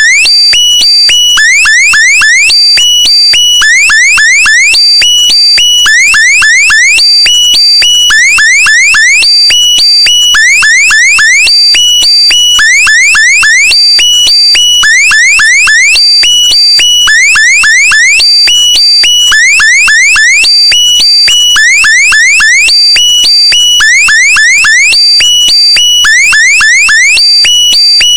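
Looped electronic meme sound effect, alarm-like and loud: a cluster of quick rising chirps over steady high tones, repeating about every two seconds.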